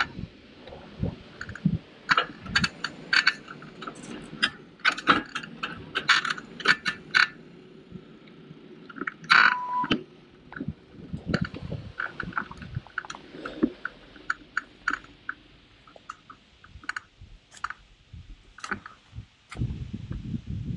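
Folding bicycle rattling and clicking while being ridden over a paved path: irregular sharp ticks and clatters, thickest in the first half, with a louder clatter about nine seconds in, over low road and wind noise that swells near the end.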